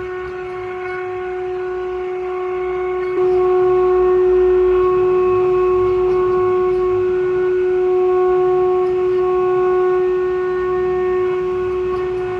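CNC router spindle running at a steady high whine while carving wood. It gets louder about three seconds in as the cut goes on.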